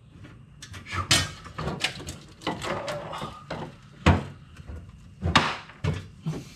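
Irregular knocks and thumps with rustling in between, from someone shifting about and handling parts inside a car's cramped interior. The loudest knocks come a little after four and five seconds in.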